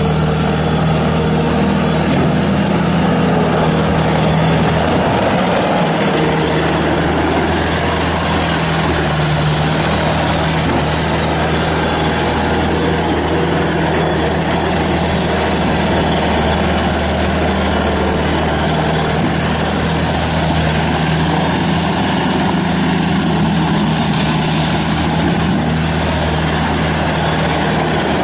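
Bobcat S250 skid steer loader's Kubota turbo diesel engine running loud and steady, holding one speed.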